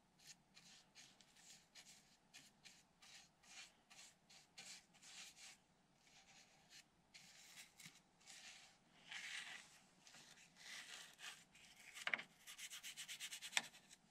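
Soft repeated strokes of a small paintbrush working sealant onto a plywood firewall, two or three scrubbing strokes a second, with a quick run of small ticks near the end.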